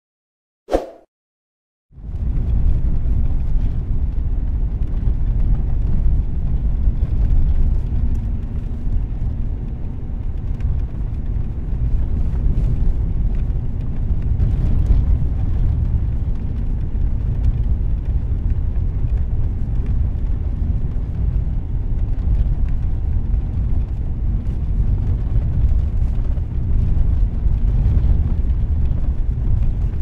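Car interior ambience: a steady low rumble heard from inside the cabin, with faint scattered ticks over it. It starts about two seconds in, after a short blip and a moment of silence.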